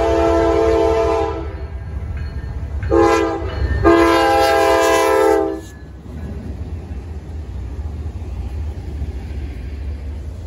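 A Norfolk Southern freight locomotive's multi-chime air horn sounds the end of a grade-crossing warning: a long blast, a short one, then a final long blast ending at about five and a half seconds. After the horn stops, the locomotives and the loaded stack cars rumble past with steady wheel clatter.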